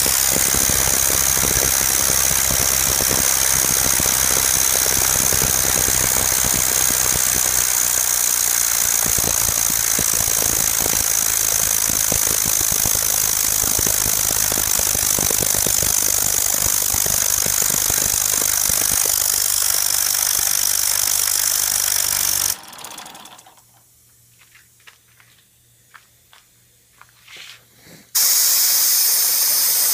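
Small home-built wobbler (oscillating-cylinder) steam engine running flat out on compressed air: a fast, steady clatter with a strong hiss of air. About 22 seconds in, the sound stops abruptly and it goes nearly quiet apart from a few small clicks. Near the end, a loud steady air hiss starts.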